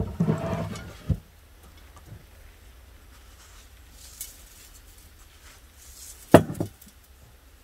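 Hands tossing fresh salad in an enamel bowl: a rustle of crisp cabbage and greens with a knock about a second in, then a faint patter of salt sprinkled from a clay pot, and two sharp knocks near the end.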